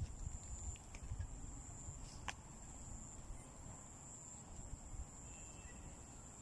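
Insects keep up a steady high-pitched drone over a low rumble, with a few soft thumps early on and one sharp click a little over two seconds in.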